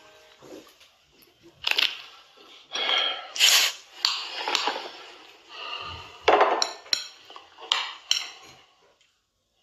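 Dishes and cutlery clinking and knocking in a kitchen: a fork on a plate and crockery being handled at a counter, in a string of separate clinks and knocks.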